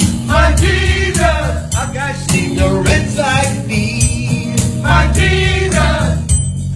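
Gospel song: voices singing over a band with strong bass and a steady drum beat.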